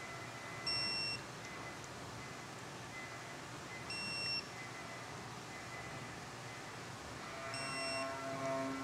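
Snap-on digital torque wrench beeping three times, about three seconds apart, each a short high beep. The beep signals that the set torque of 6 Nm has been reached on a clutch pressure-plate screw.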